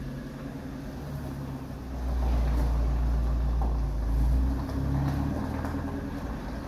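Bakkie (pickup truck) engine running at low revs through its exhaust, a steady deep rumble that swells for a couple of seconds partway through. The exhaust leak has been repaired.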